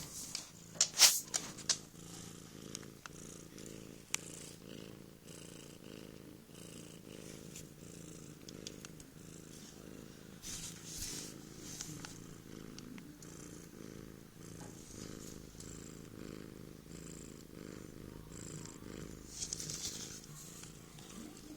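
Cat purring steadily, a low pulsing rumble. A few sharp clicks and rustles come about a second in, with fainter ones scattered throughout.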